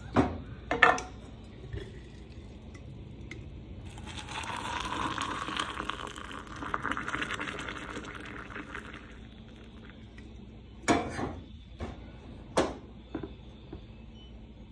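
Hot water poured from a glass kettle into a ceramic mug over a tea bag, a steady pour lasting about five seconds. Sharp clanks of the kettle against the stove grate come before it, and two more knocks follow the pour.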